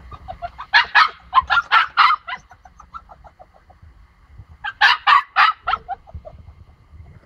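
Pomsky puppy yapping in two quick runs of high-pitched barks, one about a second in and one about five seconds in, each trailing off into softer yips: a puppy barking to be let out through a closed gate.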